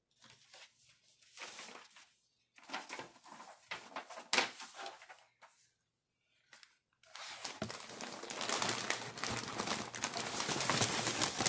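Paper and packaging rustling and crinkling as cards and a clothing box's wrapping are handled, in short bursts at first; from about seven seconds in it becomes a continuous, louder crinkling.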